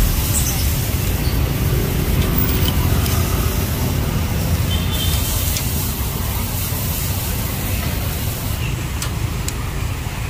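Steady street traffic noise from passing motorbikes and cars, a continuous low rumble, with a few light metal clicks from tongs on the grill grate, mostly near the end.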